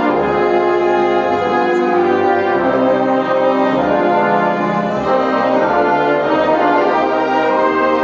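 Music: a Christmas song performance of full, sustained chords that change every second or so.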